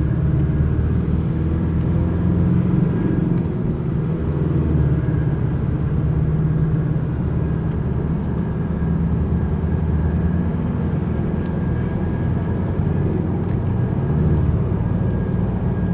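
Cabin noise of a Chevrolet S10 pickup cruising on the highway: a steady engine, tyre and drivetrain drone with low humming tones. The driver suspects the drone comes from worn ring and pinion gears in the differential, and hears it less when turning left.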